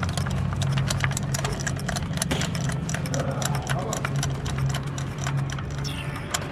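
Hyundai Grand i10's petrol engine running with a steady low hum, overlaid by a rapid, irregular ticking clatter.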